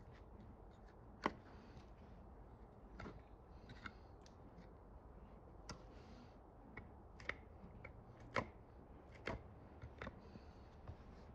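Hoof knife paring a horse's sole and frog: irregular crisp snicks and short scrapes of the blade through horn, one every second or so, the sharpest about a second in and again near eight seconds.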